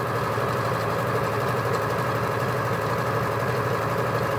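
Janome overlocker running steadily at sewing speed, stitching a narrow rolled hem along the edge of silk organza.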